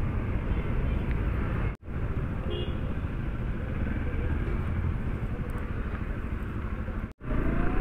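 Motorcycle engines and street traffic running steadily, a low rumble without clear speech, broken twice by a sudden brief silence, about two seconds in and near the end.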